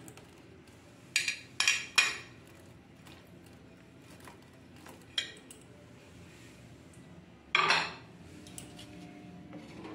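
Glass bowl clinking against the rim of a metal frying pan as small sandesh balls are tipped out of it: three sharp clinks about a second in, a lighter one midway, and a louder, longer clatter near the end.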